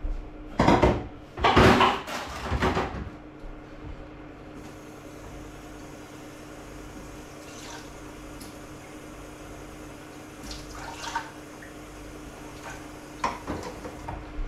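Water from a kitchen tap running in two short bursts, measuring out water for a pot, followed by a steady faint hum with a few small kitchen clinks.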